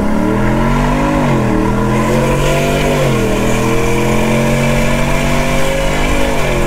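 Shelby F-150's V8 engine and exhaust pulling hard under acceleration, heard from inside the cab. The engine note climbs, drops at an upshift about a second in and again about three seconds in, then climbs slowly through the next gear.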